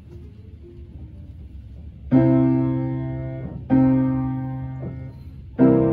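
Piano played slowly in separate chords: after a quiet start, three full chords are struck about a second and a half apart, each left ringing and fading. Halting amateur practice, 'plinky' by the player's own account.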